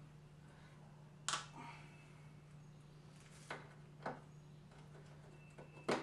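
Four short, sharp knocks or clicks of hand work on the car, about a second and a quarter, three and a half, four and six seconds in, over a steady low hum.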